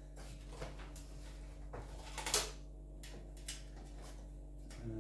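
A few scattered clicks and knocks of cables and parts being pushed and handled inside a PC case, the loudest about two and a half seconds in, over a steady low hum.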